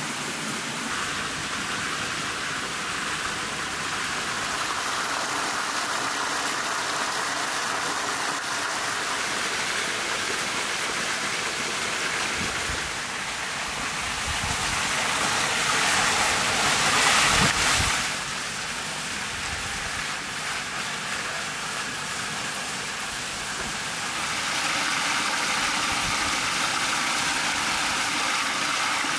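Rushing stream water, a steady noise that swells to its loudest a little past the middle, drops suddenly, and grows louder again near the end, where water splashes off the paddles of a small wooden water wheel.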